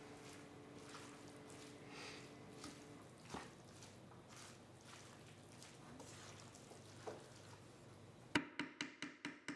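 Faint handling sounds, then near the end a quick run of about six sharp knocks as a wooden spoon stirs food against a stainless steel pan.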